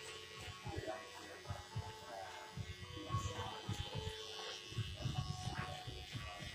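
Electric hair clippers buzzing as they cut hair on the side of the head, with irregular low knocks and rustles from the clipper being handled and moved against the head.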